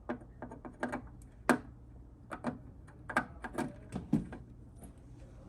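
Irregular small clicks and taps, the loudest about one and a half seconds in: a vacuum tube being fitted into the socket of a tube tester.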